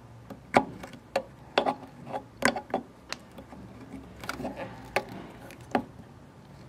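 Tip of a small screwdriver clicking and scraping against the metal group head of a Sirena espresso machine as a new rubber brew head gasket is pushed down into its groove: a dozen or so sharp, irregular clicks.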